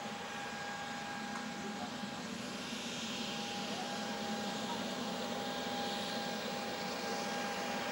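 Dassault Falcon 7X's three turbofan engines running, a steady high whine over a rushing hiss that grows gradually louder as the jet moves along the runway.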